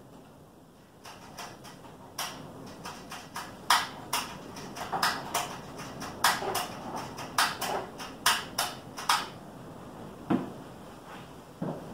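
Irregular metallic clinks and knocks of parts and tools being handled at a riding mower's engine, several a second from about a second in, thinning out near the end.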